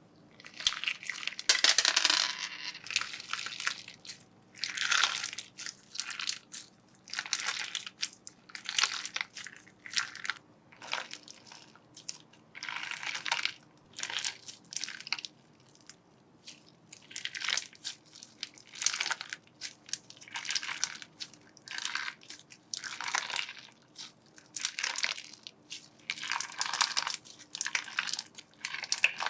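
Slime being pressed and squeezed by hand, with a short noisy crunch on each press, about one every one to two seconds.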